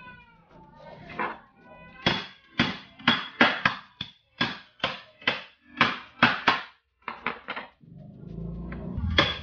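A meat cleaver chopping a raw eel into pieces on a wooden chopping board. There are about a dozen sharp chops, roughly two a second, each with a brief metallic ring from the blade.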